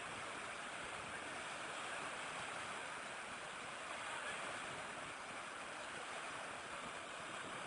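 Small waves washing steadily onto the shore of a dam, an even hiss of water.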